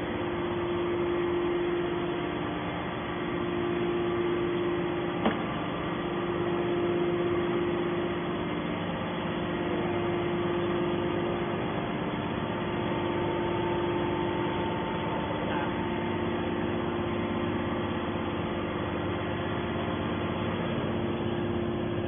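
Hydraulic power unit of a scrap metal baler press running steadily, a mechanical hum with one strong held tone. A single sharp click about five seconds in.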